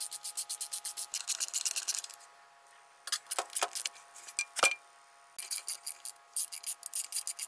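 Screwdriver turning screws in a metal tool housing: quick runs of scratchy metal clicks, about ten a second, with a few separate sharp clicks in the middle and one brief ringing metallic clink.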